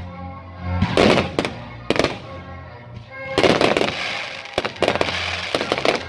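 Fireworks going off in a quick series of sharp bangs and crackles, several bursts close together, with music playing underneath.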